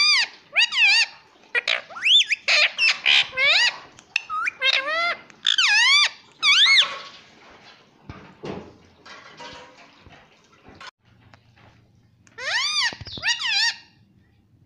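Indian ringneck parakeet vocalizing: a quick run of high, sharply rising-and-falling calls for about seven seconds, softer sounds after that, then another short run of calls near the end.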